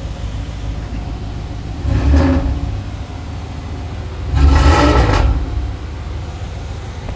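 1992 Cadillac DeVille's 4.9-litre V8 idling with two short revs, the first about two seconds in and a longer one about halfway through. It is running a day after being hydro-locked by water drawn into the intake, and runs better.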